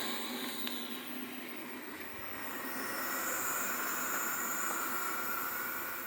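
Xiaomi Mop P robot vacuum running, a steady whirring hiss with a high whine. The whine drops away early and the sound dips about two seconds in, then rises again with a new pitch.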